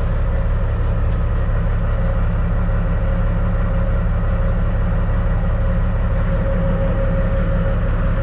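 Caterpillar C15 straight-six diesel of a Peterbilt 379 running steadily at low revs, heard from inside the cab: an even low rumble with a faint steady whine over it.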